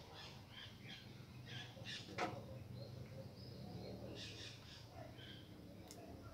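Faint birds chirping in the background, with a single sharp click about two seconds in. The multimeter in continuity mode gives no beep, the sign that the transistor collectors are not shorted to the heat sink.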